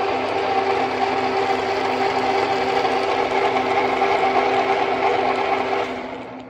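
TV-4 lathe running: its belt drive and change-gear train, including a 3D-printed plastic gear meshing with metal gears, give a steady mechanical hum with several steady tones. It fades out near the end.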